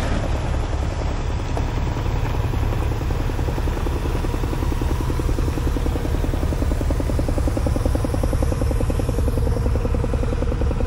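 Heavy diesel truck engine running steadily, with a deep rumble and a rapid, even firing beat that grows a little stronger in the second half.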